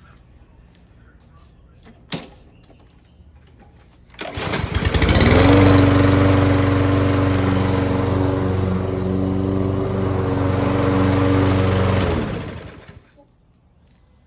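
Briggs & Stratton 163cc engine of a Toro Recycler 22" push mower starting up about four seconds in, running steadily for about eight seconds, then shut off and winding down. It fires right up now that a clogged fuel port in the carburettor has been cleaned out.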